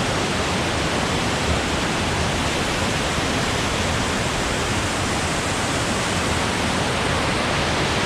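Steall Falls, a high Highland waterfall, crashing down onto rocks close by in a steady, loud roar of falling water.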